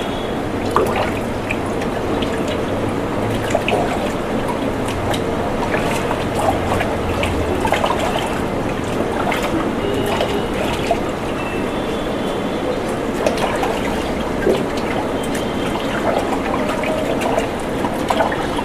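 Hands sloshing raw chicken pieces in a bucket of water to wash them, with repeated small splashes and drips. A steady hiss runs underneath.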